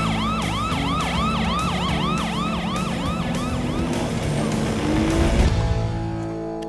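Cartoon police car siren sounding in a fast yelp, about three to four rising-and-falling sweeps a second, over steady low tones, fading out after about four seconds.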